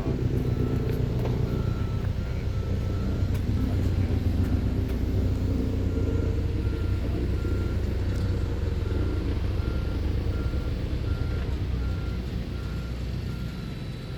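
Reversing alarm beeping at a steady, even pace, a little over once a second, with a short pause a few seconds in, over a continuous heavy engine rumble.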